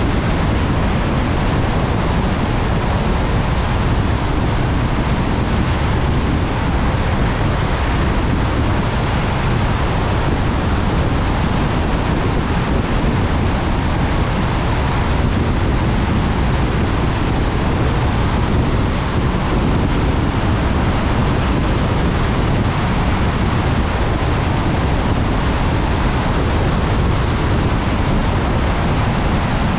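Steady rushing road noise of a car driving in the rain, tyres hissing on wet pavement over a deep rumble, unchanging throughout.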